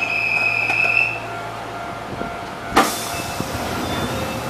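Door-closing warning buzzer of a standing Enshu Railway electric train: a steady high beep lasting about a second, over a low hum. About three seconds in comes a sharp thud with a short hiss, as the doors shut.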